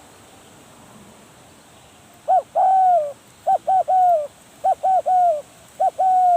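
Spotted dove cooing: four phrases, each of one to three short notes ending in a longer, falling coo, starting about two seconds in.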